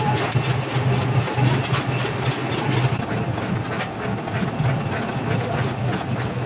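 Motor of a sheet-iron pan-forming machine running with a steady low hum, with light metallic clicking over it that thins out about three seconds in.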